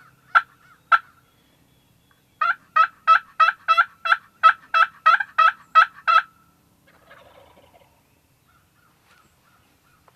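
Turkey yelping: three sharp single notes, then a run of about a dozen loud yelps at about three a second.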